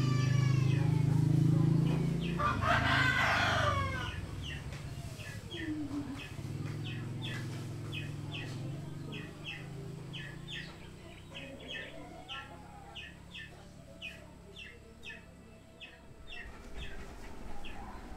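A rooster crowing once, about two to four seconds in, over a steady low hum that fades at the same time. After it comes a long run of short, high chirps, about two a second, at a lower level.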